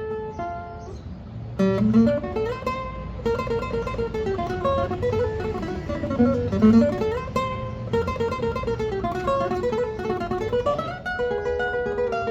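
Requinto (small high-pitched Mexican guitar) being played solo: a melody of plucked single notes over lower bass notes. It starts soft and becomes fuller and louder about a second and a half in.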